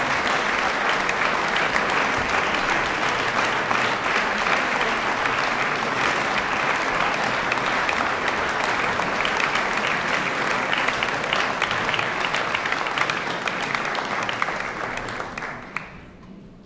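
Concert audience applauding steadily with dense clapping, fading out near the end.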